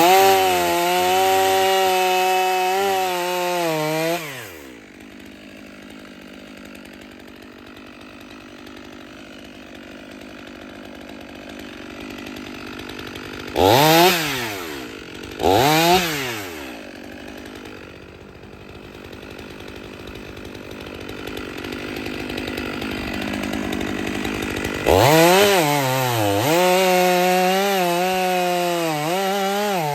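Stihl 500i two-stroke chainsaw at full throttle for about four seconds, then dropping to idle. The throttle is blipped twice in quick succession midway. It opens up again near the end, its pitch sagging and recovering as it bites into wood.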